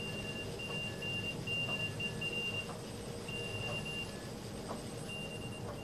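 Morse code (CW) signal from a ham radio receiver: a high-pitched beep keyed on and off in dots and dashes, including one long dash, with a fainter, lower-pitched second signal keyed alongside it.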